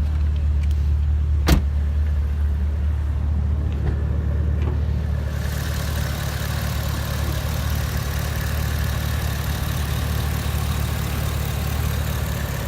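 Holden Commodore SS-V's V8 idling steadily, with one sharp click about a second and a half in. From about five seconds in the running sound turns brighter, with more hiss on top.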